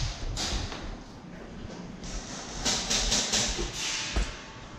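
Footsteps and clothing and gear rustling as a player moves quickly, in a series of short, hissy scuffs, with a single knock near the end.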